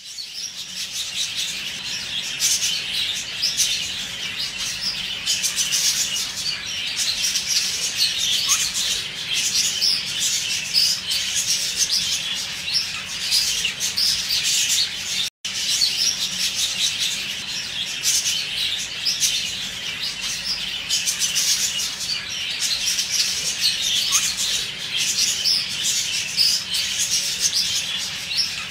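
Budgerigars chattering and chirping, many quick high chirps overlapping without let-up, with a split-second gap about halfway through.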